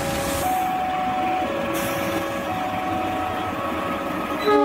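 A KAI diesel locomotive and its passenger train rumbling past, under a two-tone electronic alarm that switches between a low and a high note about once a second. Near the end the locomotive's horn sounds suddenly, a loud chord of several notes.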